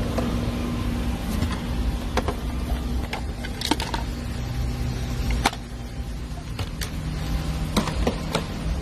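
Steady low mechanical hum with scattered sharp clicks and knocks as the clear plastic carrier canister of a bank drive-through pneumatic tube is taken out and opened.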